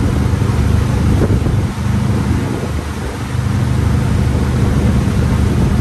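An engine running steadily: a continuous low hum under a haze of noise that dips briefly twice.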